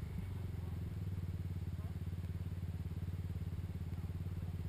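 ATV engine running steadily at an even, low speed, its firing pulses fast and regular with no revving.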